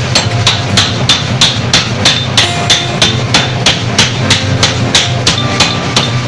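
Power forging hammer striking hot metal in a steady rhythm of about three blows a second, each blow with a short metallic ring, over the constant low hum of the machine's drive.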